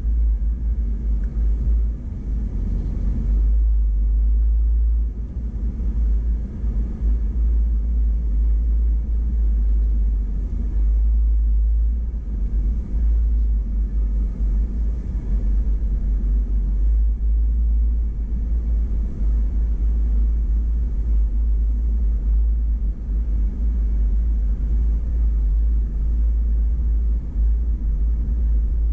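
Steady low rumble of an off-road vehicle driving slowly along a dirt trail, picked up by a camera mounted on its hood.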